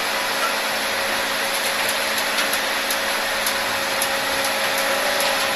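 Volvo EC210B tracked excavator's diesel engine running steadily as the machine crawls up onto the tilted bed of a flatbed carrier truck.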